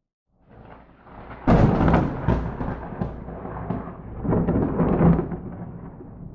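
Thunder: a close lightning strike. A rumble builds, breaks into a sharp loud crack, rolls on with a second swell, and then fades.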